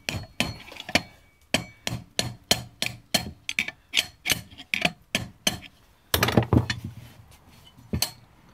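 Hammer blows on an ice pick used as a punch, driving the seized hand wheel shaft out of an antique Singer Model 12 sewing machine. Sharp, even strikes about three a second, then a quick flurry about six seconds in and a single last blow near the end.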